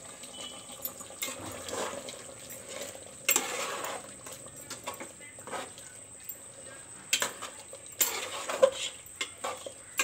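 Metal spoon stirring thick chicken curry in an aluminium pot, mixing in onion paste, with a clink or scrape against the pot every second or two.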